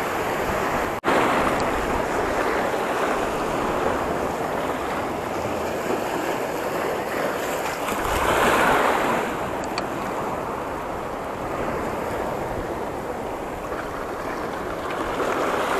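Sea surf washing against the boulders of a rock jetty, a steady rushing noise that swells louder about eight seconds in. The sound cuts out for an instant about a second in.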